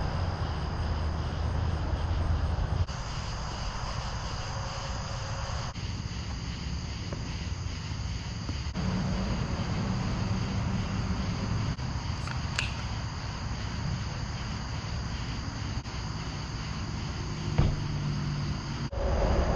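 Steady low rumble and road noise of a car travelling, with a steady high-pitched chirr of night insects over it. The sound changes abruptly every few seconds as short clips cut from one to the next.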